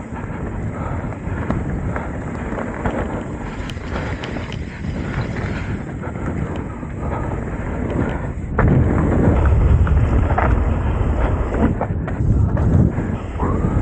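Trek Top Fuel 8 full-suspension mountain bike ridden fast down a dirt forest trail: knobby tyres rolling over the ground, chain and frame rattling over bumps, with wind buffeting the microphone. It gets louder and rougher a little past halfway.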